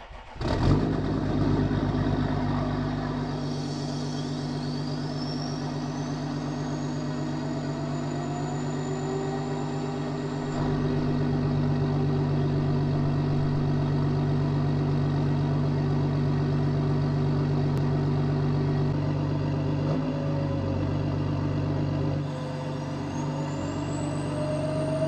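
Stage 2 tuned Audi A6 3.0 BiTDI twin-turbo V6 diesel starting up suddenly and then idling steadily, a little louder from about ten seconds in and dropping back a few seconds before the end. A thin high whine rises in pitch twice over the idle.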